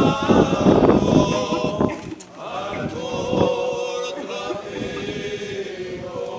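A group of men chanting together in slow, long-held notes, a religious procession chant. For about the first two seconds a loud rush of noise covers it, then the held voices come through clearly.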